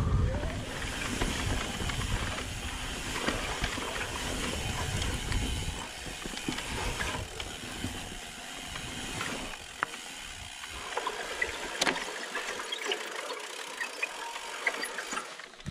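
YT Decoy 29 electric mountain bike riding down a dirt and gravel trail: tyres crunching over the ground, wind buffeting the microphone, and the bike rattling. The wind rumble drops away about six seconds in, leaving sharp clicks and small rattles from the bike.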